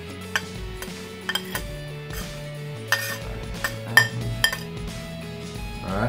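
A kitchen knife scraping and tapping against a ceramic plate as chopped garlic, herbs and peppers are pushed off into a bowl, a series of sharp clinks with the loudest about four seconds in, over steady background music.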